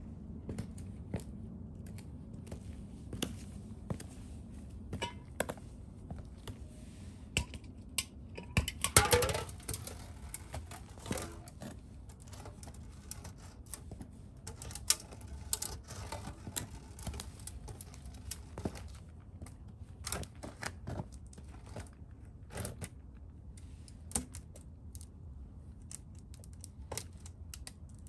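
Stiletto boot heels clicking on concrete and an aluminium beer can being stepped on, knocked and pressed underfoot: scattered sharp clicks and crunches, with a loud crackling clatter of the can about nine seconds in.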